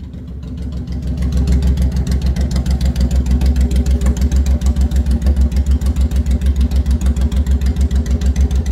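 Honda VTX 1800's V-twin engine idling through aftermarket Cobra exhaust pipes, with a steady pulsing beat. It grows louder over the first second or so, then holds even.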